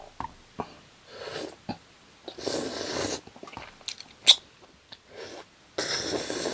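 Close-miked eating: chewing and biting into spicy tteokbokki and fried gimmari, wet mouth clicks and a few longer noisy stretches of chewing, with one sharp click about four seconds in.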